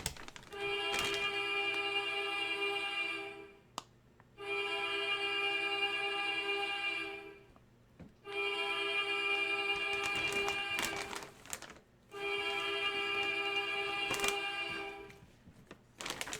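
A steady pitched tone, rich in overtones, sounding four times for about three seconds each with a short gap between, like a repeating ringtone or alert; a few light clicks come in between.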